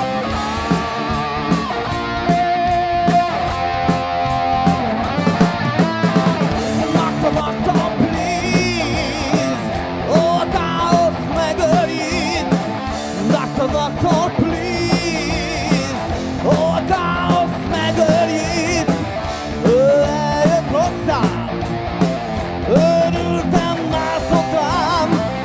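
Live blues-rock band playing: electric guitars, bass guitar and drum kit, with a man singing over them through the PA.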